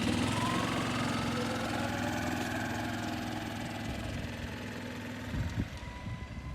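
A small engine running steadily, with a faint whine rising in pitch over the first two seconds. It eases off after about five seconds.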